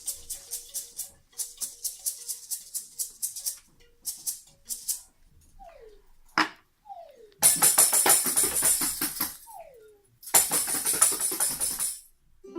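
Hand percussion shaken in quick pulsed bursts, a rattle like a tambourine or maracas. A few short falling whistle-like glides and a single sharp click come next, then two long, loud bursts of fast continuous rattling.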